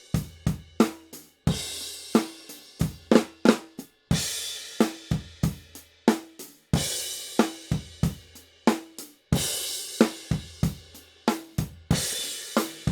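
K Zildjian Dark Crash cymbal played over a drum kit beat of kick, snare and tom strokes. The crash is struck about every two and a half seconds, five times, each wash fading out before the next hit. The recording is raw, with no compression or EQ.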